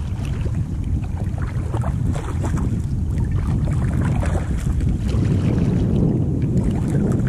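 Wind buffeting the microphone, with water lapping and small splashes and drips around a sea kayak, busiest in the first few seconds.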